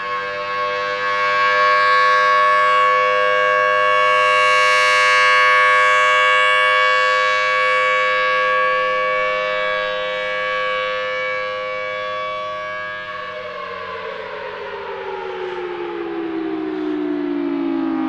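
Federal Signal Thunderbolt 1000BT outdoor warning siren sounding its alert: a steady single wail that swells and fades as the rotating horn sweeps past. About 13 seconds in, the tone starts to wind down, its pitch falling steadily as the siren coasts down.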